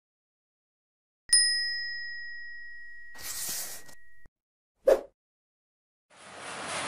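Notification-style bell ding from a subscribe-button animation about a second in, ringing for about three seconds with a short whoosh near its end, then a brief whoosh near five seconds. Near the end, road noise with vehicle engines fades in.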